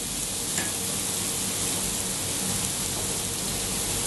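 Chopped onion and garlic frying in oil in a frying pan: a steady sizzle.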